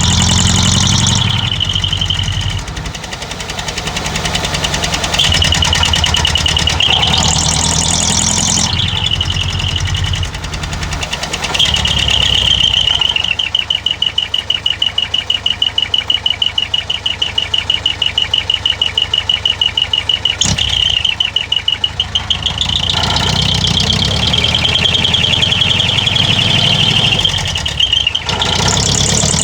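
Mitsubishi Canter's 4D33 4.2-litre four-cylinder diesel running through a dual muffler exhaust. It is revved up and let back down several times, with a stretch of steady, evenly pulsing idle in the middle.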